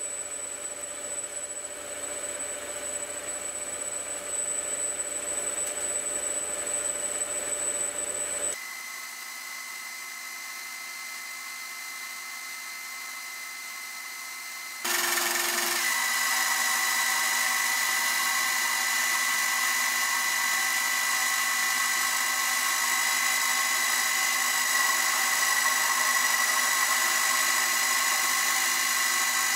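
Hafco AL250G metal lathe turning down a mild steel bar with a carbide tool under coolant: steady machine running with a high whine. The sound changes abruptly twice, dropping quieter about a third of the way in and getting louder with a strong whistle-like whine about halfway.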